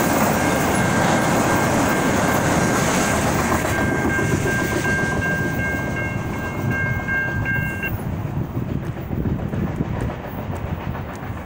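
Freight train's last cars rolling past on the rails with a clattering rumble that fades as the train moves away. A steady high ringing tone cuts off about eight seconds in.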